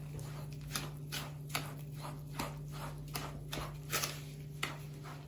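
A spoon stirring thick semolina and yogurt batter for şam tatlısı in a plastic bowl, in a steady rhythm of strokes about two a second.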